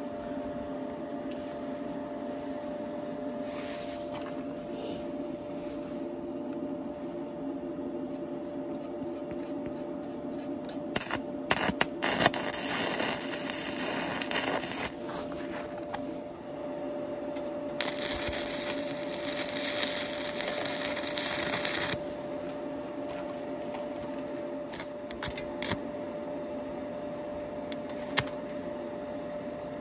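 Stick (MMA) arc welding with a Migatronic Focus Stick 160: two runs of arc crackle, about three and four seconds long, around the middle, with a few sharp clicks as the arc is struck. A steady hum runs underneath.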